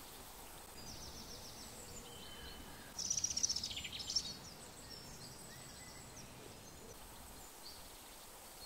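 Faint meadow ambience with high-pitched chirping from small wildlife, loudest as a rapid high trill about three seconds in that lasts just over a second.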